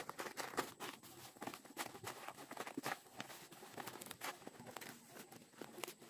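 Large green leaves rustling and crinkling as they are folded around a parcel of rice and pressed against a woven plastic tarp: irregular soft crackles and taps.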